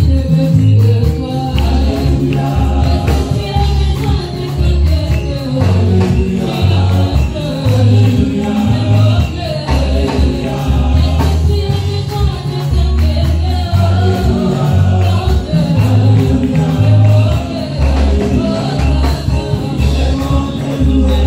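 Amplified live gospel worship music: several singers on microphones over a keyboard, with a heavy bass line in held notes and steady light percussion.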